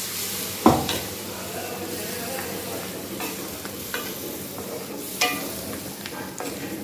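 Wooden spatula stirring a thick okra masala gravy in an aluminium kadai over a gas flame, the gravy sizzling steadily. The spatula knocks sharply against the pan about a second in and again near the end, with a few lighter taps between.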